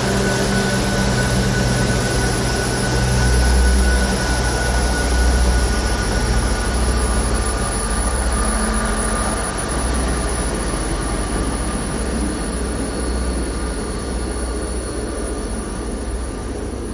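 South Western Railway diesel multiple-unit train running out along the platform: a steady low engine drone and wheel rumble that slowly fade as the train draws away.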